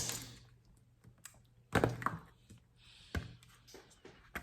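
A few separate light knocks and clicks, with a soft rustle around two seconds in: the handling of a cake box and its packaging on a table.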